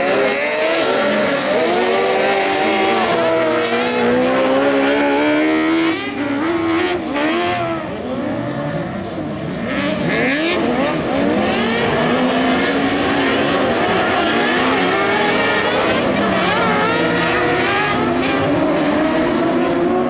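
Several motorcycle-engined cross karts racing together, their overlapping engine notes rising and falling as they rev up and back off. The sound drops a little for a few seconds around the middle.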